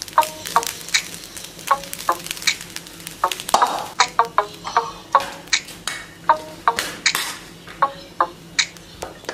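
Light background music of short plucked notes at changing pitches in a steady rhythm, with cooked rice being stirred and scraped in a steel pot a couple of times.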